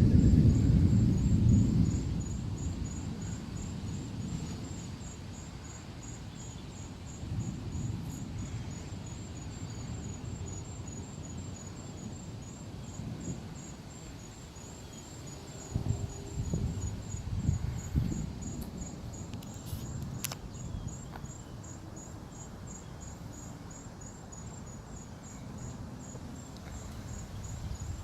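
Distant thunder rumbling, loudest at the start and fading, then rolling again about halfway through. A steady, evenly pulsed high chirping of insects runs underneath.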